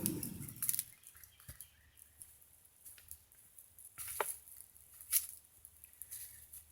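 The tail of an air pump blowing a charcoal fire fades away over the first second as it winds down. After that it is mostly quiet, with a few scattered sharp clicks.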